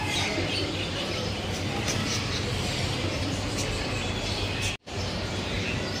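Birds chirping over a steady low hum and background noise. The sound cuts out for a split second near the end.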